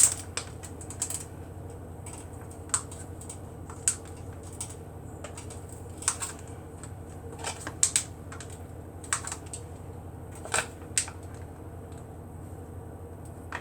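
Scattered light clicks and taps from hands laying salami slices onto a sandwich and handling the packaging, irregularly spaced, some in quick pairs, over a steady low hum.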